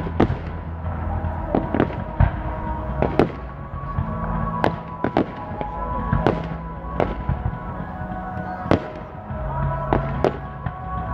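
Fireworks display: aerial shells bursting overhead in over a dozen sharp bangs at irregular intervals, with music playing underneath.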